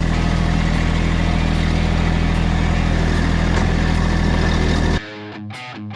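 Massey Ferguson diesel tractor engine running steadily, then cut off suddenly about five seconds in as guitar music starts.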